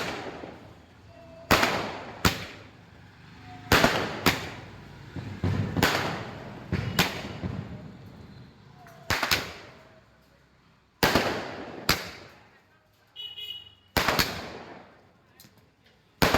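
Multi-shot sky-shot firework cake going off: about a dozen loud, sharp bangs at uneven gaps of one to two seconds, some in quick pairs, each trailing away.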